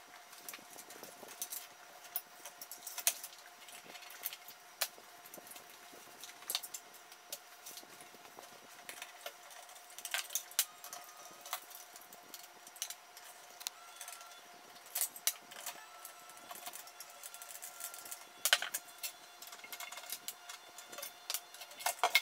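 Scattered clicks and light metallic clinks of a Corsair all-in-one liquid cooler being unscrewed and lifted out of a PC case: screwdriver on screws, the pump block, tubes and radiator fan frame knocking against the case. A faint steady hum lies underneath.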